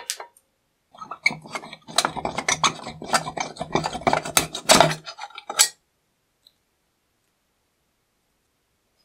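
Pliers gripping and working a rusty wire hinge pin out of a corroded cast-iron charcoal iron. Rusty metal scrapes and crackles in quick clicks for about four seconds. One last sharp click comes as the pin comes free.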